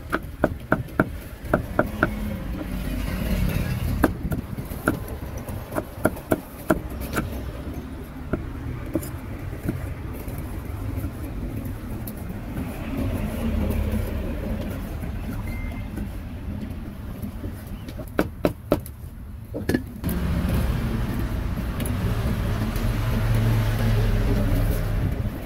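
Steady rumble of passing road traffic, with runs of sharp knocks, several a second, in the first seven seconds and again briefly in the last third.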